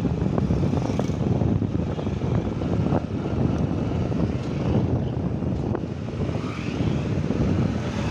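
Steady low rumble of riding along a road, the vehicle's engine and road noise heard from on board, with motorbikes close by.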